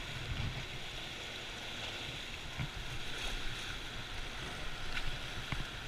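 Steady rushing of turbulent white water churning below a dam.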